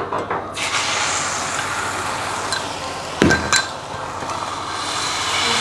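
Beaten egg sizzling steadily in a hot frying pan, the hiss starting about half a second in as the egg is poured and spread thin for thinly fried egg. Two sharp knocks about three seconds in.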